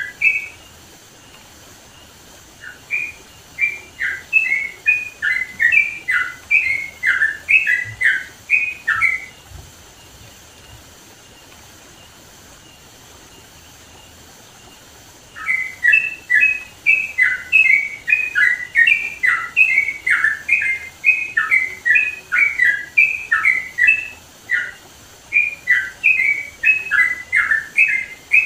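Yellow-vented bulbul (trucukan) singing loud, rapid phrases of short chirping notes. It stops about nine seconds in and starts again after a pause of about six seconds.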